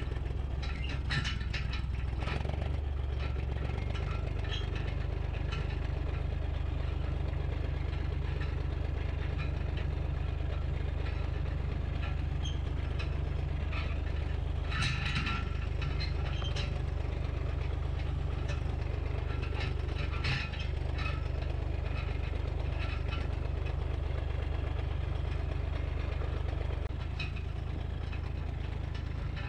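Massey Ferguson 35 diesel tractor engine running steadily as the tractor drives along, its note rising a little about four seconds in. There are a few short rattles and clanks partway through.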